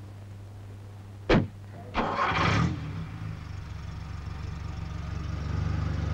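A car engine being started: a sharp click about a second in, a short burst of cranking as the engine catches, then the engine running steadily and picking up slightly as the car pulls away.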